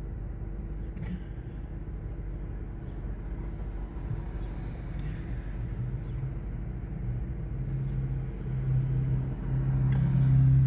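An engine running with a steady low hum that grows louder over the last few seconds, as of a motor vehicle nearing or revving.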